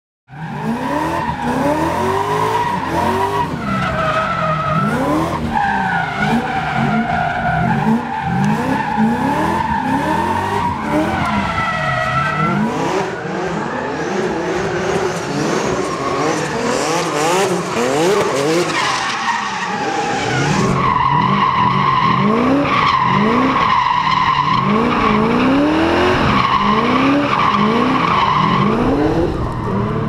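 BMW drift car engines revving hard up and down over and over as they drift and do burnouts, with the tyres screeching in long held squeals. About twenty seconds in the engine sound turns heavier and fuller while the tyre screech holds steady.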